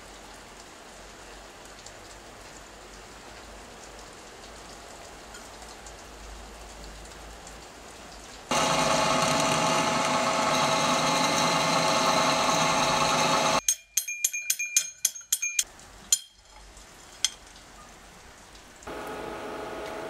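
Drill press running and drilling into a small metal block for about five seconds, a loud steady drone with a cutting hiss that starts and stops abruptly. After it, a quick run of sharp metallic clicks and clinks, and near the end a quieter steady machine hum starts.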